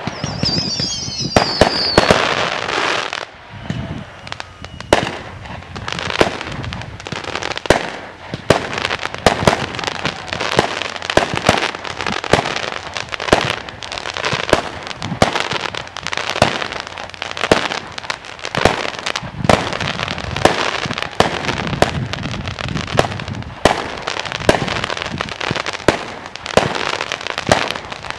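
Fireworks display: a rapid, unbroken barrage of aerial shell bursts with crackling between them. A whistle falling in pitch ends about two seconds in.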